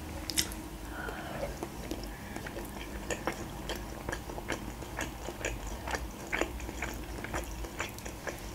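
Close-miked chewing of soft boiled gyurza dumplings: irregular wet mouth clicks and smacks, over a faint steady low hum.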